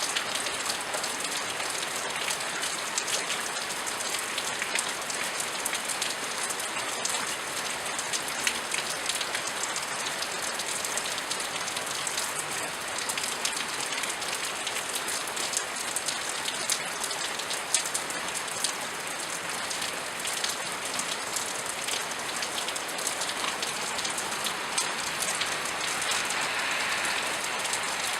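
Steady rain falling, with many fine drops pattering on a hard surface.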